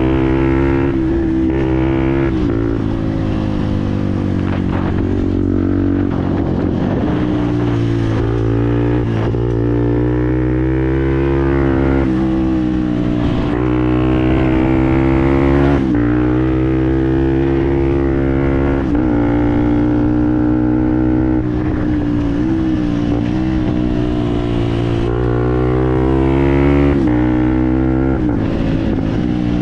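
Fantic Performance 125 Motard's single-cylinder four-stroke engine running through a GPR aftermarket exhaust while being ridden, its pitch climbing steadily and then dropping sharply again and again as it revs up and falls back.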